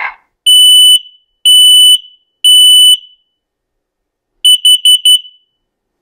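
Combination smoke and carbon monoxide alarm sounding its warnings. It gives three long, loud, high beeps about a second apart, the temporal-three pattern of a smoke alarm. After a pause near the end come four quick beeps, the temporal-four pattern of a carbon monoxide alarm.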